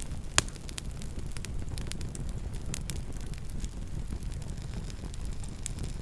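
Campfire burning and crackling: a steady low rumble under frequent small crackles, with one sharp, loud pop about half a second in.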